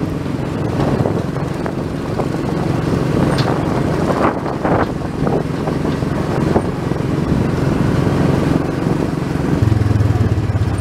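Tomorrowland Speedway ride car's small gasoline engine running as the car drives along the track, a steady low engine drone that grows louder near the end.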